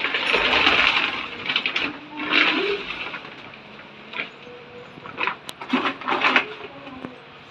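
A plastic carrier bag and a woven plastic sack rustling and crinkling as they are handled and opened, in irregular bursts: a long one at the start, then shorter ones about two, four, five and six seconds in.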